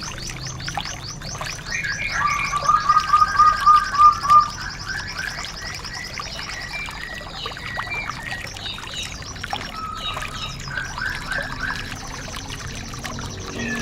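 Several songbirds singing over one another on a compiled bird-song training track for white-eyes. Fast high trills run through most of it, and a louder series of even, lower whistled notes comes in about two seconds in and lasts a couple of seconds.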